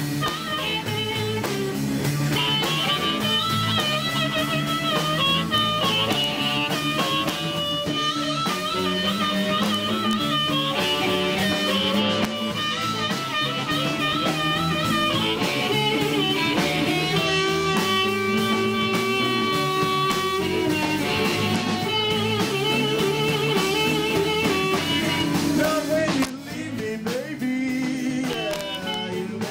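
Live blues band playing: electric guitar, electric bass and drum kit behind an amplified blues harmonica played through a bullet microphone. The harmonica bends and wavers between notes and holds one long note about two-thirds of the way in; the level dips briefly near the end.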